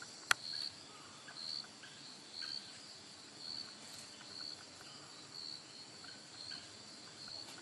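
Faint insects calling in woodland: a short high chirp repeats about once a second over a steady thin high hum. A single sharp click comes just after the start.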